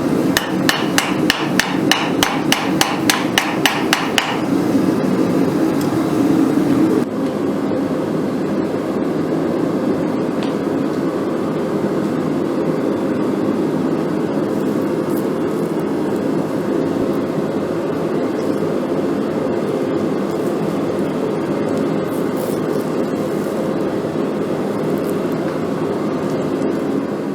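Rapid, evenly spaced hammer strikes on metal, about four or five a second for roughly four seconds, over a steady mechanical roar. The roar carries on alone after the hammering stops.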